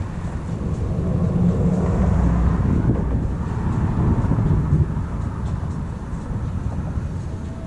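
Thunder rolling in a long low rumble that swells for a few seconds, then slowly fades.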